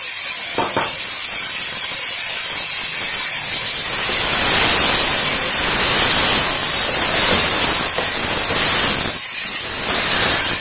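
Chicken, vegetables and corn sizzling in an oiled frying pan while being stirred and tossed with a wooden spoon; a steady hiss that gets louder and fuller from about four seconds in and eases briefly near the end.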